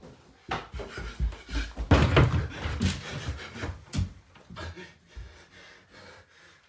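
A man breathing hard in bed, with the rustling and knocks of his movement on the bedding and the bed frame.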